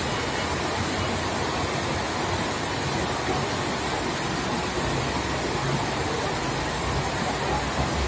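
Forklift engine running at low speed as the truck inches forward, under a constant noisy rush; its low hum grows stronger in the second half.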